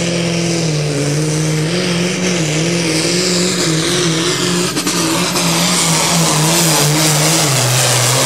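Turbocharged V8 diesel of an International 1468 pulling tractor running flat out under heavy load while towing the sled. Its pitch wavers up and down and drops about seven and a half seconds in, over a growing rushing noise.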